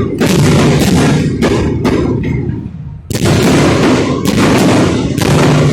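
Fireworks exploding in a rapid series of loud bangs, with a brief lull about two and a half seconds in before a sharp bang starts them again.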